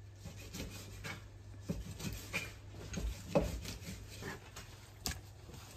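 Knife cutting raw meat on a cutting board: scattered irregular taps and short scraping strokes.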